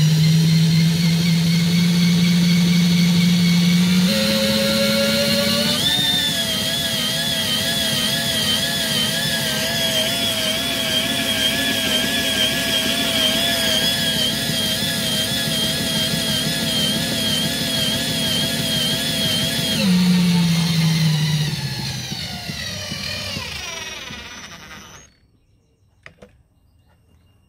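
18 V Ryobi cordless drill spinning the shaft of a permanent-magnet wind-turbine generator: a steady motor whine that steps up in pitch about four seconds in, then wavers in a regular warble while the generator feeds power into the grid-tie inverter. Near the end it drops in pitch and winds down to a stop.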